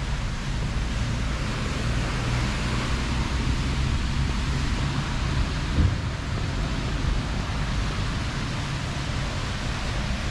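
Steady outdoor rushing noise with an uneven low rumble of wind on the microphone, and a brief thump about six seconds in.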